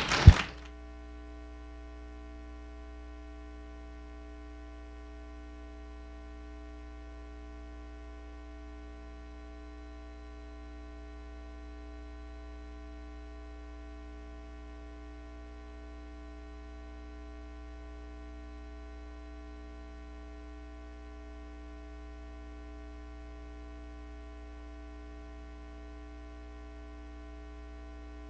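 Steady electrical hum, a stack of unchanging tones with the lowest the strongest, after a short sharp sound right at the start.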